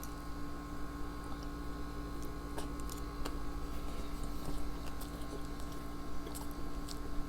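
Faint chewing and small mouth clicks from eating sushi rolls, over a steady background hum.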